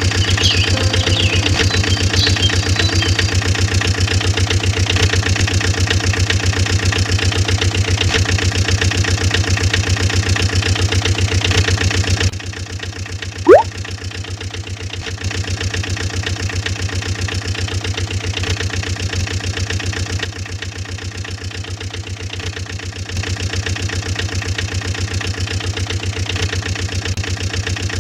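Small vehicle engine running at a steady idle, a rapid even chugging. The engine drops in level and shifts at a few points. About halfway through a single brief, loud tone sweeps sharply upward.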